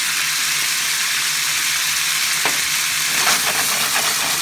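Cubes of beef sizzling as they brown in a frying pan, a steady hiss with one sharp click about halfway through and a short flurry of crackles soon after.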